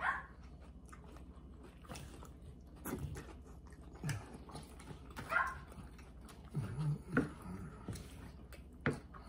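A dog whining a few times, in short whines that fall in pitch, over the chewing and light clicks of people eating.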